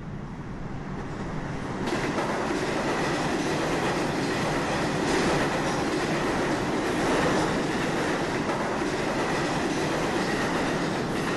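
Elevated subway train running on steel tracks: a steady rumble that gets louder about two seconds in, with a thin steady squeal above it.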